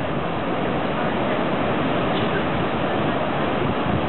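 Surf breaking along the beach: a steady, even rush of waves.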